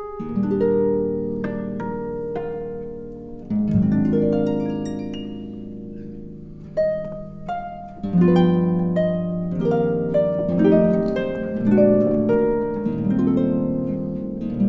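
Instrumental music of plucked strings, one note after another starting sharply and ringing away in a layered melody.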